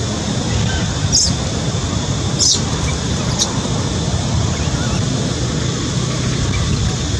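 Steady wind rumble on the microphone, with three short high-pitched squeaks in the first half.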